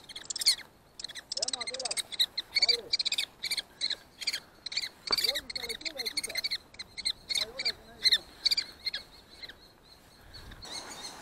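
Common kestrels calling: a rapid series of short, sharp, high calls repeated several times a second, mixed with a few lower wavering calls, which stops shortly before the end.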